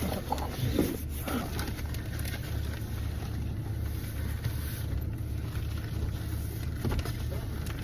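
Steady low rumble of a running engine, with a slight even pulsing, and a few faint voices in the first second or so.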